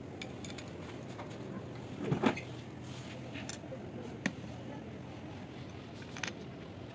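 A few light knocks and clicks as the top of an overlock sewing machine is handled by hand: a small cluster about two seconds in, then single clicks after four and six seconds. A faint, steady low hum sits underneath.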